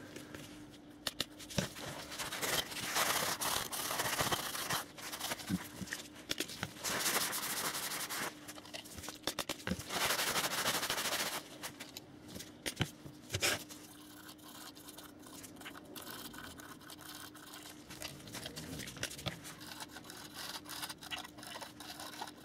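Kitchen towel damp with isopropyl alcohol rubbed over the plastic body of a OO-scale model goods van: a scrubbing hiss in several bursts of a second or two, with light clicks and knocks as the model is handled. A faint steady hum runs underneath.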